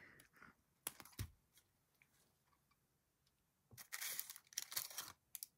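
Small snips clicking shut a few times about a second in, cutting at the lace lining of a miniature metal doll's cradle. Near the end comes a short stretch of tearing and rustling as the lace lining is pulled free of the metal.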